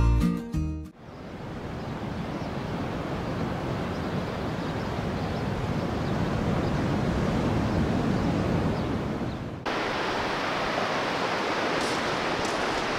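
Steady wash of surf breaking on a beach, after acoustic guitar music cuts off in the first second. About ten seconds in the sound switches abruptly to a brighter, hissier surf.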